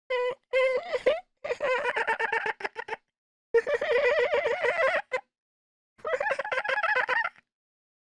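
Baby laughing in several bouts of rapid, high-pitched 'ha-ha-ha' giggles with brief silent gaps between them.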